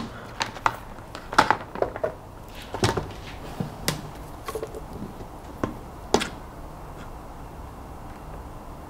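Scattered light clicks and knocks, about five over several seconds, as an LED strip and its wires are handled and fed through the rim of a plastic bucket. The last and sharpest comes about six seconds in.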